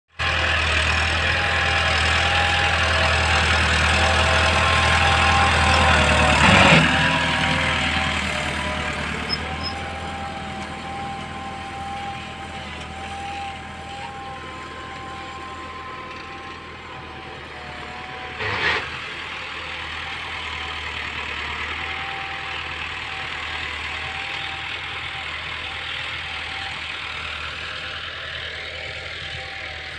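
Massey Ferguson 385 tractor's diesel engine running steadily under load while pulling a chisel cultivator through dry soil. It is loudest in the first seven seconds, then fades as the tractor moves away. There are two brief sharp knocks, about seven and nineteen seconds in.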